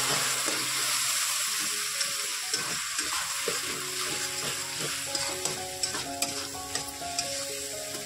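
Spiced onion-tomato masala sizzling in a metal kadhai while a metal spatula stirs and scrapes it, with sharp clicks of the spatula against the pan mostly in the second half. The sizzle eases gradually as the masala thickens.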